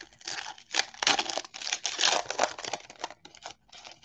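Wrapper of a 2020 Donruss football card pack being torn open and crinkled by hand: a dense run of crackling and tearing, loudest in the middle, dying away just before the end.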